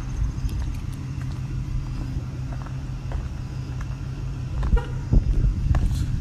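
Car engine running with a steady deep rumble, a few clicks and knocks near the end.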